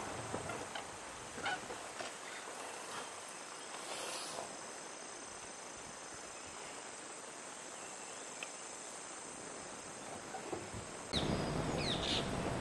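Quiet forest and grassland ambience with a few faint, short bird calls. About eleven seconds in, a louder rushing noise starts, with a couple of high calls over it.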